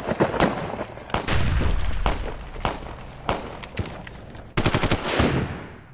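Gunfire: scattered single shots, then a rapid automatic burst about four and a half seconds in that fades away near the end.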